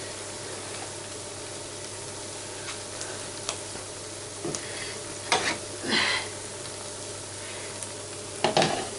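Chicken and onions sizzling steadily in a frying pan. The stock has boiled away and the pan is still hot with the heat just switched off. A few brief clatters come from the middle to the end.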